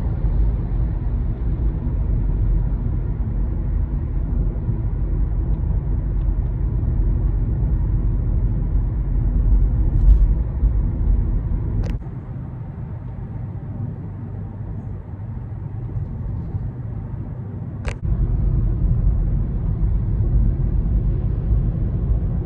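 Steady low road and engine rumble inside a moving car's cabin. A sharp click comes just past halfway, after which the rumble is quieter. Another click about three-quarters through brings it back up.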